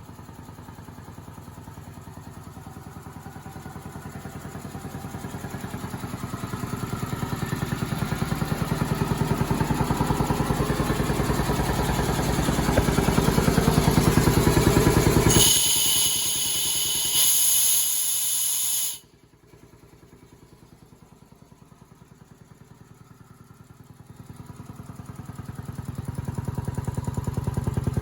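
Ingersoll Rand air compressor running with a rapid, even pulsing that grows louder. About halfway through, a loud hiss of escaping air lasts a few seconds and then cuts off suddenly. The running drops to a faint pulsing, then builds up again near the end.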